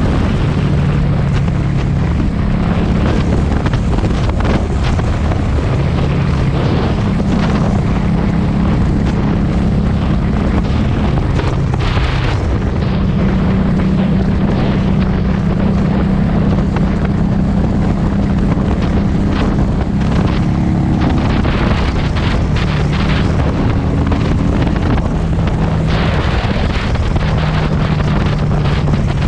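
Harley-Davidson Street 500's V-twin engine and exhaust running on the move, its hum stepping up and down in pitch a few times as the speed changes, largely buried under heavy wind buffeting on the camera's built-in microphone.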